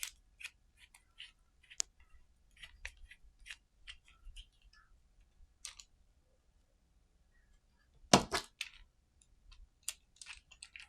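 Light clicks and ticks of a small T8 Torx screwdriver and metal parts being handled while a tiny screw is backed out of a tripod mount, with a louder clatter about eight seconds in.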